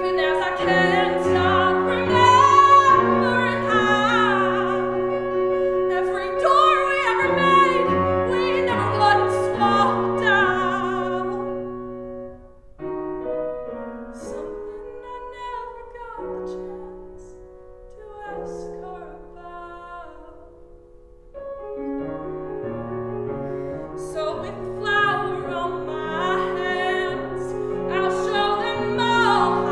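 Female voice singing a musical-theatre song in a full, classically trained style, accompanied by a grand piano. Around the middle the music drops to a much softer, quieter passage, then the voice comes back loud near the end.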